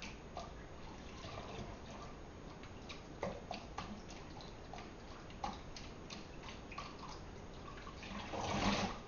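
Lukewarm water splashing and dripping in a stainless-steel kitchen sink as a hair weave is dipped and swished in it. Near the end the wet hair is lifted out and water pours off it into the sink, the loudest part.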